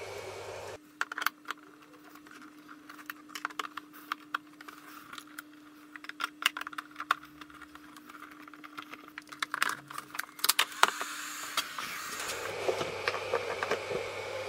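Wires and crimp connectors being handled and pushed onto terminals inside a control box: many small scattered clicks and rattles. A steady fan hum stops about a second in and comes back near the end as the box powers up.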